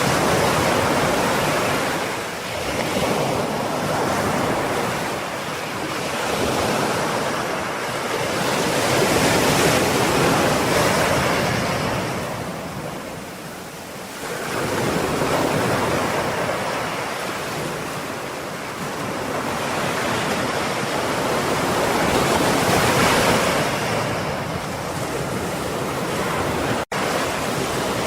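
Ocean surf: waves breaking and washing up the shore, the rushing sound swelling and ebbing every several seconds. A momentary dropout cuts the sound near the end.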